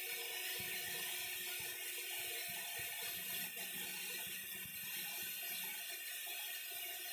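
Core drilling machine running steadily, its 4-inch diamond core bit grinding through a reinforced concrete slab: a constant motor whine over a gritty rasp.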